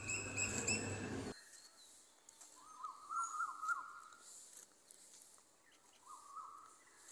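A bird calling in a rapid run of short repeated notes about three seconds in, and again briefly near the end. Before it, a faint outdoor background noise cuts off abruptly about a second in.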